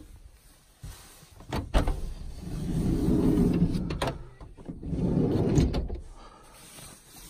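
A kei van's door being slid open from inside: a few latch clicks, then two loud sliding rumbles with a knock between them.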